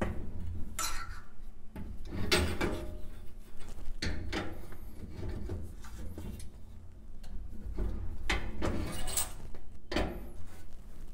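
An adjustable wrench clanking and scraping on the metal nut as a corrugated flexible gas line is tightened onto a gas range's inlet fitting. The metal clanks and scrapes come a handful of times, spread out, each brief.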